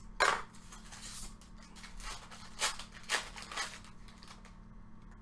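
Football trading cards being handled and flipped through by hand: a handful of short swishes and slaps of card stock, with some plastic wrapper crinkle. The loudest comes just after the start, and the rest fall in the next few seconds.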